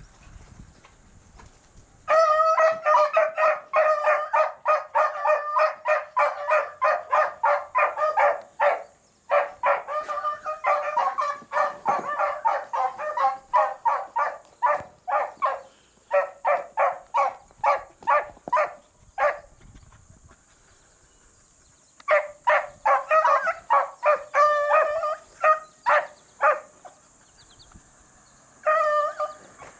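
Beagles baying on a rabbit's scent: rapid, high chop barks at about five a second, one long run starting about two seconds in, then two shorter runs after brief pauses.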